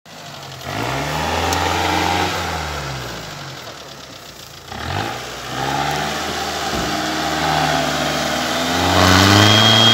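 Mitsubishi Pajero II's engine revving under load as it drives through a muddy rut, its pitch climbing in the first couple of seconds, easing off, then climbing again from about halfway to its loudest near the end.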